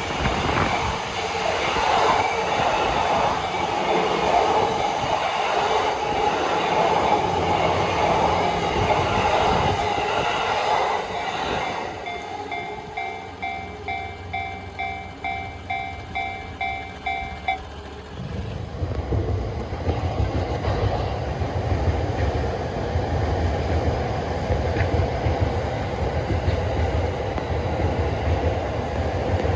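A Yamanote Line commuter train running past over the level crossing, its noise fading about twelve seconds in. That leaves the crossing's warning bell ringing in a steady rhythm, which stops abruptly about halfway through. A low rumble follows.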